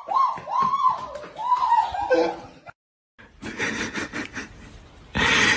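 A person shrieking a string of short, high-pitched "Oh!" yelps, about two a second, cut off after about two seconds. After a moment of silence, rustling handling noise follows, with a louder burst of noise near the end.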